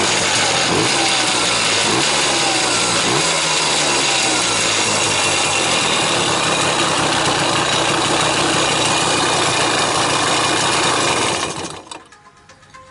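Simson S51 Enduro's two-stroke single-cylinder engine running, heard close up, with a few rises and falls in pitch in the first seconds. It cuts out abruptly shortly before the end.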